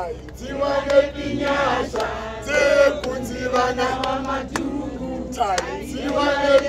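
A group of voices singing a chant in phrases, with short breaks between them.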